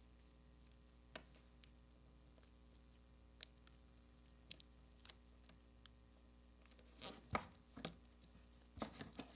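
Mostly near silence, with faint clicks from a die-cast Matchbox Snow-Trac model being handled in gloved hands while tape is wrapped around its wheels. A cluster of louder knocks comes about seven seconds in and again near the end as the metal model is set down on the bench and handled.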